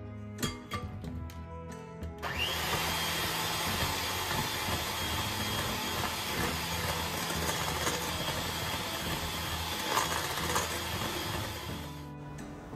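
Electric hand mixer beating an egg and vanilla into creamed butter and sugar. It switches on about two seconds in with a brief rising whine as the motor comes up to speed, runs steadily, and stops shortly before the end.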